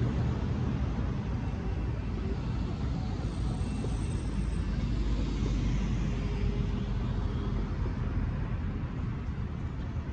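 Road traffic: cars driving across the railroad crossing, a steady rumble of engines and tyres.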